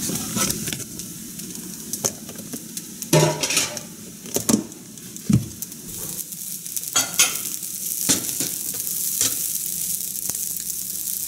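Fried rice being stirred and turned in a nonstick frying pan, a steady light sizzle with several sharp scrapes and knocks of the utensil against the pan.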